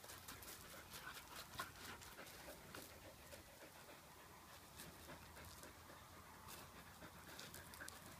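Faint panting of a Border Collie at play, with scattered light crunches and clicks of gravel under her paws and the toy ball she is working.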